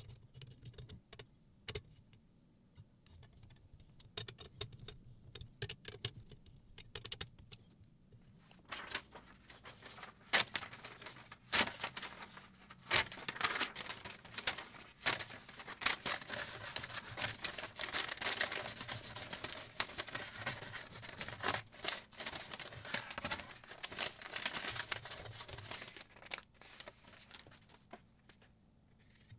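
Sped-up small clicks and taps of a screwdriver tightening the clamp screws on a knife-sharpening jig. From about nine seconds in comes a long stretch of crackling, crinkling paper as a sheet is pressed against the clamped kitchen knife's edge to test its sharpness.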